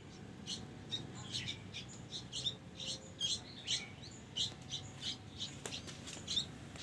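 Young sooty-headed bulbuls (kutilang) chirping: short high cheeps repeated about two or three times a second.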